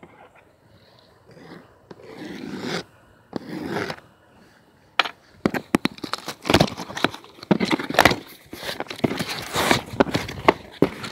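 Cardboard parts box and plastic wrap being handled: soft sliding scrapes at first, then from about five seconds in a busy run of crinkling and crackling clicks as the wrapping is pulled at.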